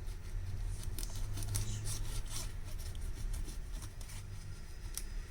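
Thin prying tool scraping and clicking along a smartphone's glass back as it slices the adhesive beneath, a run of short sharp scratches over a steady low hum.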